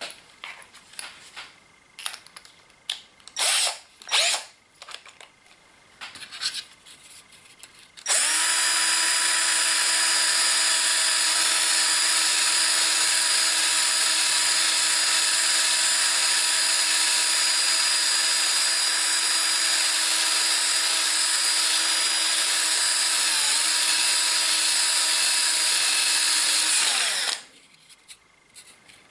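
A few light handling knocks and clicks, then a small electric drill starts and runs at a steady speed for about twenty seconds, boring holes in a plastic model-railway coach body out to 6.5 mm. Its pitch dips briefly near the end before it stops.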